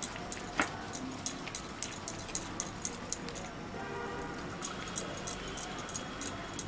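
Processed cheese cube being grated on a metal grater: quick scraping strokes, about three a second, with a short pause near the middle.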